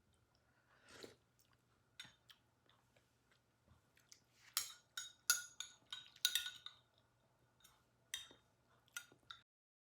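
Spoon clinking against a soup bowl while eating: irregular short clinks and clicks, densest and loudest a few seconds in, stopping suddenly near the end.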